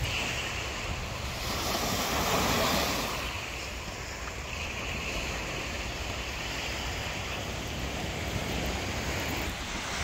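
Surf washing onto a sand-and-pebble beach, with a louder surge of waves about one to three seconds in. Wind buffets the microphone throughout with a low rumble.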